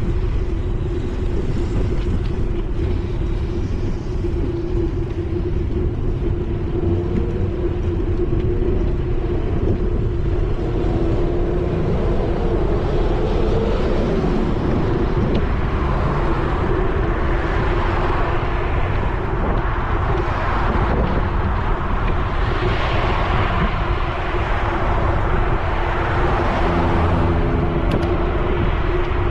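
Riding noise from a bicycle-mounted action camera: wind rumbling on the microphone and the hum of tyres on asphalt, steady throughout. From about halfway in, a louder hiss of road traffic swells and fades a few times.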